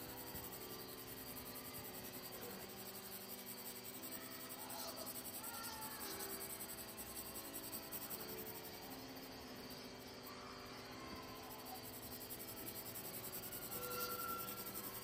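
Soft ambient music of slow, held notes that change pitch every couple of seconds, with a few short high chirps laid over it.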